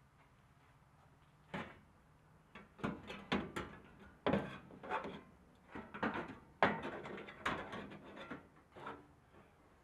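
Thin sheet-metal body panel being carried and set into a car's trunk floor by hand: an irregular run of knocks, rattles and scrapes from about a second and a half in, dying away near the end.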